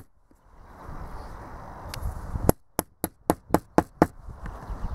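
Delphi diesel injector's coil body rapped against a hard surface to knock out the small pin in the centre of the coil. After a stretch of rustling handling noise, a quick run of about seven sharp taps starts halfway through, three or four a second.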